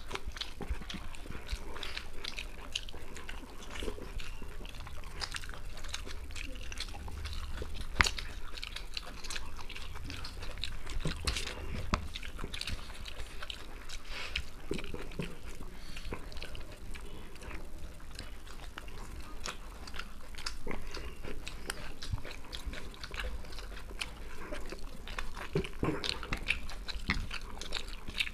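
Two people chewing and smacking their lips over mouthfuls of chicken biryani eaten by hand: an irregular stream of wet mouth clicks and smacks, close to the microphone.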